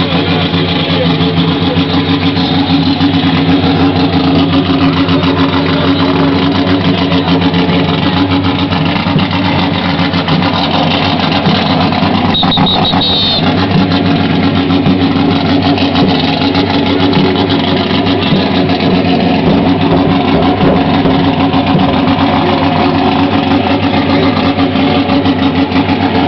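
Loud car engine running steadily with a constant, uneven throb. A short high-pitched whistle is heard about halfway through.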